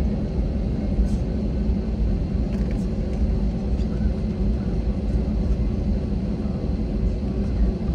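Airbus A321 jet engines at low power heard inside the passenger cabin as the airliner taxis: a steady, even rumble with a faint high whine above it.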